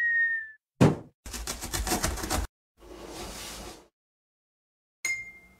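Cartoon intro sound effects: a sharp thump, then a rapid rattle lasting about a second, a soft whoosh, and a ringing chime near the end.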